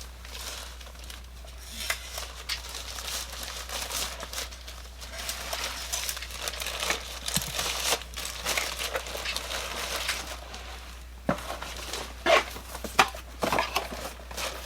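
Packaging crinkling and rustling as it is handled during unboxing, with several sharper knocks and clicks near the end.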